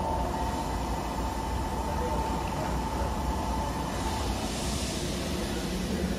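JNR 117 series electric train standing at the platform, running with a steady low rumble. A steady high tone fades out about four seconds in, and a hiss swells up soon after.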